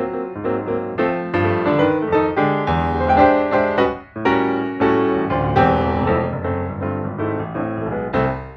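Background piano music: a fast run of piano notes, with a short break about four seconds in.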